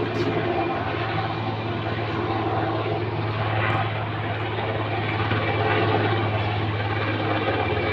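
Military helicopters flying in formation overhead, a loud, steady drone of engines and rotors.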